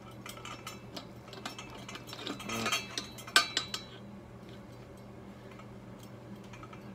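Steel pipe cutter being worked on a steel exhaust pipe: scattered metallic clicks and scraping, with a dense burst of rattling about two seconds in, ending in one sharp clink.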